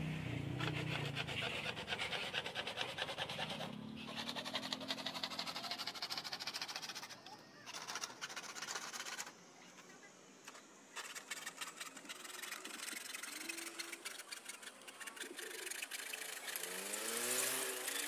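Rapid rasping strokes of a hand-held hacksaw blade cutting a thin sheet-metal bracket, with a couple of short pauses in the middle.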